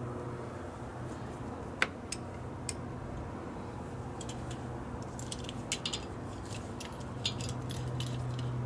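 Light metallic clicks and taps of a tool being opened and fitted against a brake caliper piston, a single sharp click about two seconds in and a run of small clicks in the second half, over a steady low hum.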